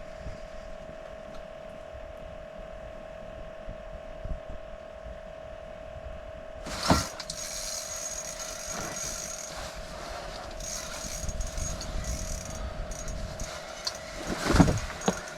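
Handling noise from an angler fighting a hooked fish on an ice-fishing rod: rustling and scraping over a steady hum, with a sharp knock about seven seconds in and another near the end.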